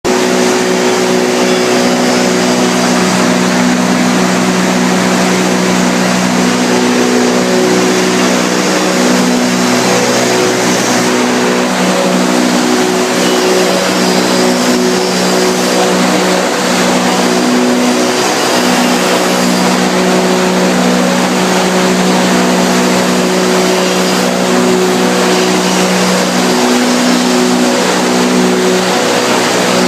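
PET bottle washing and recycling line running: a loud, steady mechanical din with droning hum tones that fade in and out and shift a little in pitch.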